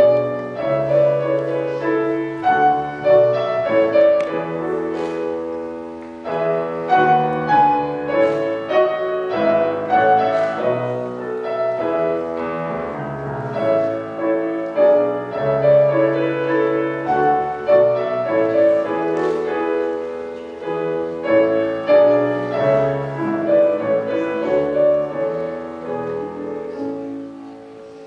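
Piano playing a classical accompaniment, melody over bass chords, without a voice. It softens near the end.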